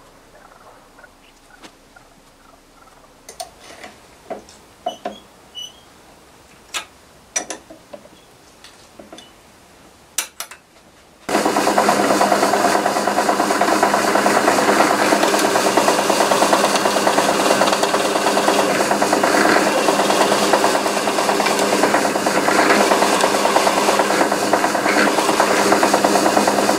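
A few light clicks and taps, then about eleven seconds in a benchtop drill press fitted with a spade bit starts suddenly and runs steadily, the bit being brought down to bore the hanging hole in the wooden board's handle.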